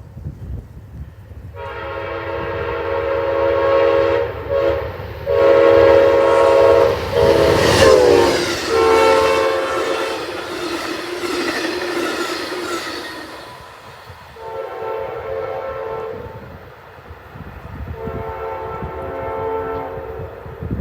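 Amtrak passenger train's air horn sounding a long sequence of blasts with brief breaks as the train approaches at speed; its chord drops in pitch about eight seconds in as the locomotive passes. Two shorter, fainter blasts follow as it moves away, over the steady rumble and clatter of the train on the rails.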